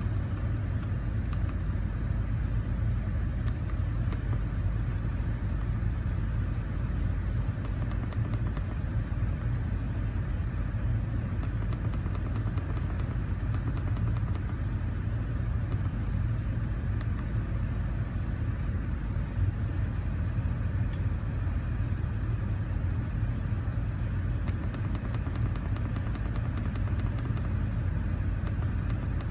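Car engine idling steadily with a vacuum leak, a constant low rumble, with faint clusters of quick ticks now and then.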